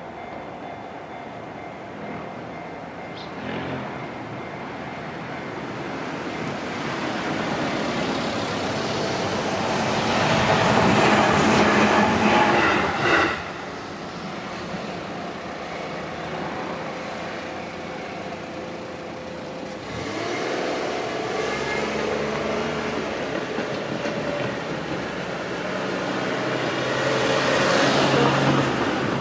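A JR Tokaido Line electric train passing over a level crossing. The sound swells to its loudest about ten to thirteen seconds in and falls away abruptly. A second rise of train noise, with a steady pitched hum, builds toward the end.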